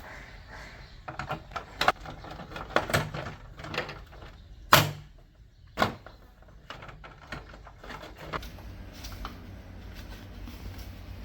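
A series of clicks and knocks of hard parts being handled, the two loudest about five and six seconds in, then a faint low steady hum.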